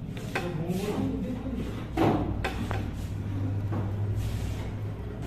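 Small clicks and knocks of a precision screwdriver and an iPhone 6 being handled on a workbench mat while its screws are taken out, the loudest knock about two seconds in, over a steady low hum.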